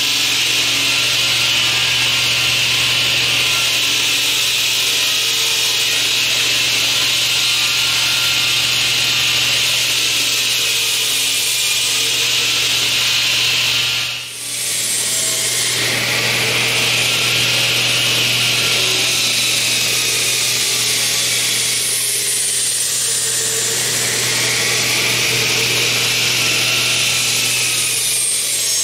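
Echidna HS hydraulic diamond saw's large water-cooled blade cutting through a concrete barrier: a loud, steady grinding noise. There is a brief dip in level about halfway through, and in the second half its tone rises and falls slightly as the blade works.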